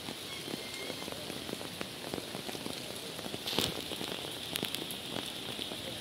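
Steady rain falling, a dense patter of many small drops over a continuous hiss, briefly louder about halfway through.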